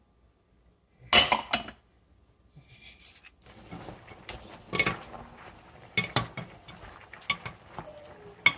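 Wooden spoon stirring turkey tail pieces in a stainless steel pot, with irregular knocks and scraping against the pot's sides. A loud clatter comes about a second in.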